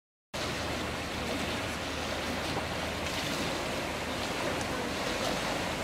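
Steady wash of choppy, wind-ruffled water and waves, cutting in abruptly just after the start.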